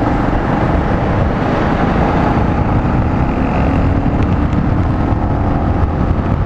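Bajaj Avenger 220's single-cylinder engine running as the motorcycle pulls away and gathers speed, its pitch climbing slowly, with wind rushing on the microphone.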